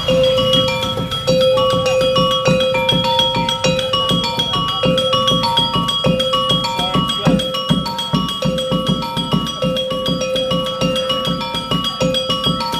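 Javanese topeng monyet street-show music: a struck metal mallet instrument rings a short repeating melody over quick, steady drum beats, about four a second.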